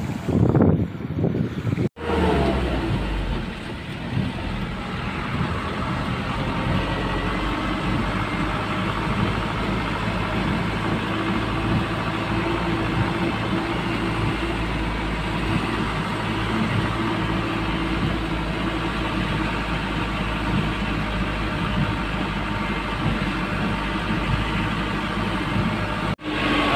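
Wind buffeting the microphone for about two seconds, then, after a cut, a motor vehicle engine running steadily with road noise.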